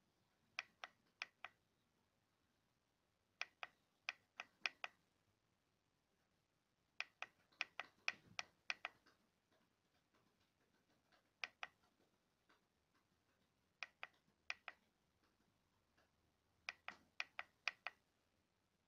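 Push button on the base of a small LED lamp being clicked in quick runs of three to eight presses, with pauses of a couple of seconds between runs.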